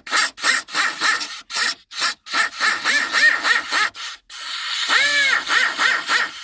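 Power grinder cutting through the plastic dash panel in quick repeated strokes, about three or four a second, its pitch rising and falling with each pass, with a brief break near the middle.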